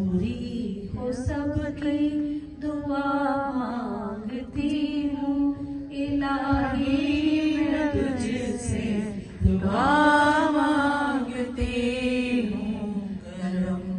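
A woman's voice chanting a devotional naat, unaccompanied, in long melodic phrases that rise and fall, with a higher held line about ten seconds in.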